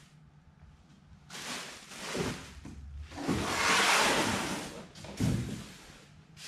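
Packaging being handled: a couple of short rustles, then a longer, louder sliding rush about three to four seconds in, and a single sharp thump about five seconds in.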